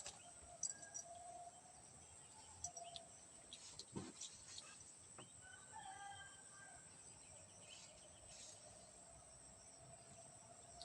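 Near silence with a faint bird call in the background about halfway through and a few soft ticks.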